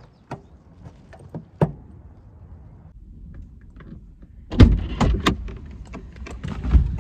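Scattered clicks and knocks, then from about halfway strong wind gusting on the microphone with heavy thumps.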